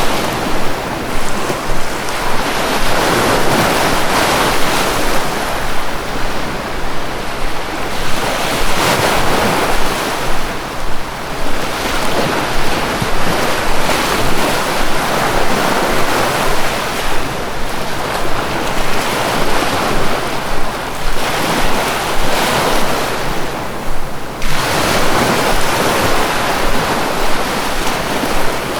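Sea waves surging onto a shore: a steady rush of surf that swells and eases every few seconds.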